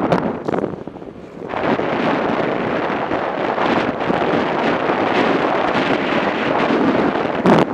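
Wind rushing over a motorcycle-mounted microphone as the bike rides along a road. It eases briefly about a second in, then holds steady.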